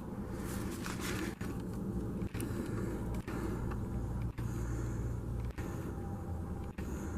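Steady low background rumble with a faint hum, cut by several brief dropouts in the sound.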